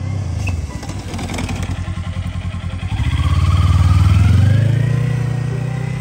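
Kawasaki Ninja sport bike's parallel-twin engine running as it rides through a cone swerve, pitch rising as it speeds up, loudest about four seconds in as it passes close, then fading as it rides off.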